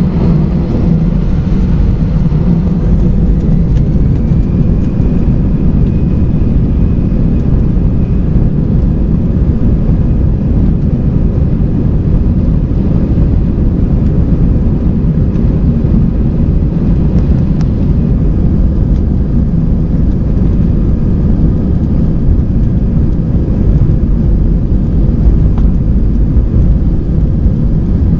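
Airbus A320 jet engines at takeoff power heard inside the cabin over the wing: a loud, steady roar with a deep rumble, and a faint whine that rises a few seconds in as the engines spool up.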